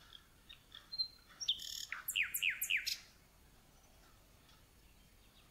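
A small bird singing: a quick run of chirps and repeated falling whistles, starting about a second in and lasting about two seconds, with a few faint clicks before it.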